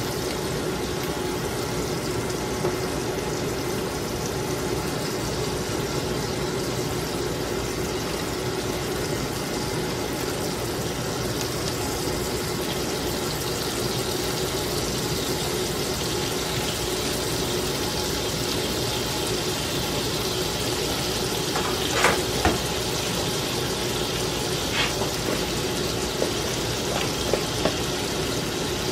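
Melted butter sizzling steadily in a hot skillet as pancake batter is poured in, over a faint steady hum. A few light clicks come about two-thirds of the way through.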